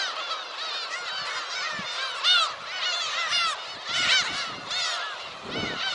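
A colony of black-tailed gulls calling overhead: many overlapping calls with no break, one loud call standing out a little over two seconds in.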